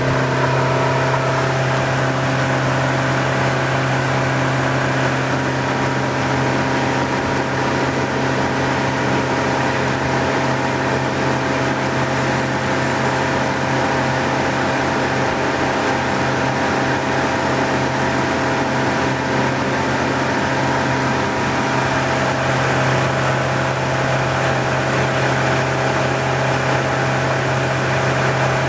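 A boat's motor running at a steady speed, a constant drone with a strong low hum.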